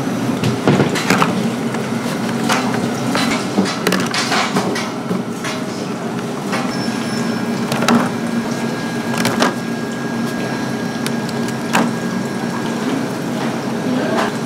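Irregular knocks and clicks, one every second or so, over a steady low hum, with a faint steady high tone coming in about halfway through.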